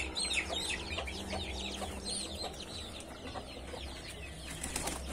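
Chickens in a yard: chicks peeping over and over in short, high, falling chirps, with faint clucking underneath.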